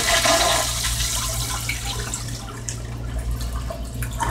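Toilet flush running down: water rushing and swirling in the bowl and the cistern refilling, fading steadily. A steady whine stops within the first second.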